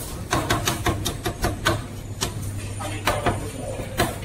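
Cleaver chopping roast meat on a thick wooden chopping block: a quick, uneven run of sharp chops, several a second, with voices and a steady low hum behind.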